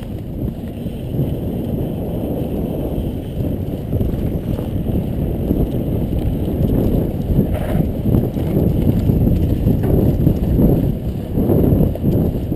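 Mountain bike riding over a rough trail: a continuous rumble and rattle of the bike shaking over bumps, getting louder after a few seconds.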